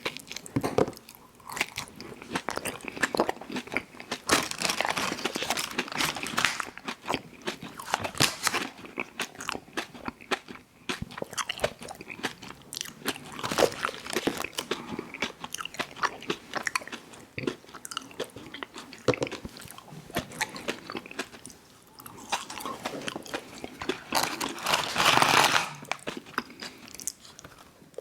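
Close-miked eating of ice cream sandwiches: crunchy bites and chewing, with a louder noisy stretch near the end.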